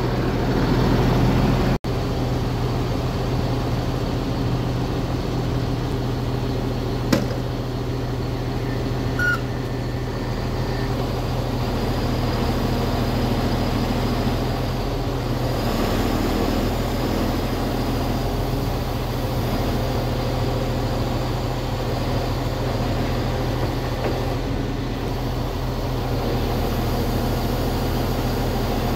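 Timber truck's diesel engine running steadily at slightly raised revs with its hydraulic pumps engaged. A single short knock about 7 s in.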